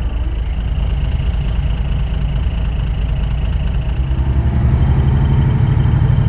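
Semi truck's diesel engine running under way with road noise, getting somewhat louder in the last two seconds.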